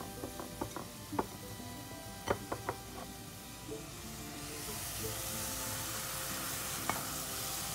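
A few light clicks as ground spices are tipped off a plate into a hot pot, then from about halfway through a steady sizzle as the spices land in the pan of fried onions, oil and a little water.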